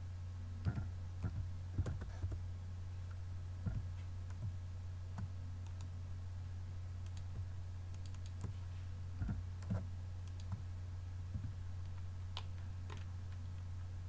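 Computer keyboard keys and mouse buttons clicking at irregular intervals, over a steady low hum.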